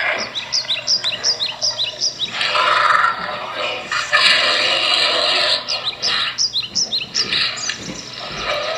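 A cat storyboard video's soundtrack played through a phone speaker. Quick, high chirps, about three a second, come in two runs: one at the start and one again about six seconds in. Between and after them come stretches of loud rushing noise.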